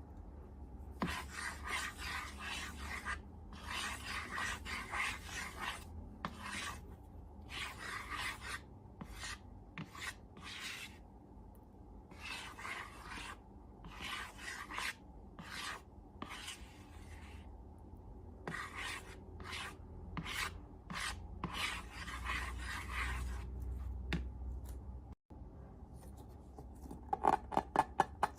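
Slime being worked by hand in repeated rubbing, squishing strokes, each lasting about a second with short pauses between. A quick run of sharper crackles starts near the end.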